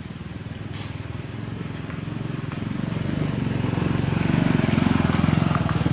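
A small engine running with a fast, even pulse, growing steadily louder.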